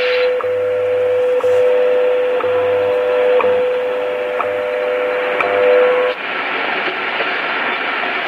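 Hammarlund HQ-150 shortwave receiver picking up a time-signal station: a steady tone of about 500 Hz, broken by a short tick once a second, over static. About six seconds in the tone cuts off as the receiver is tuned away, leaving only hiss and static.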